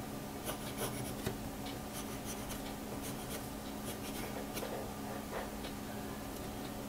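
Pencil scratching on paper in many short strokes as drawing lines are gone over, with a steady low hum underneath.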